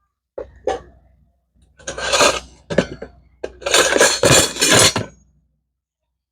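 Miniature metal cooking pots and their lids clinking and rattling as they are handled: a few light clinks, then a busier run of clattering, stopping abruptly about five seconds in.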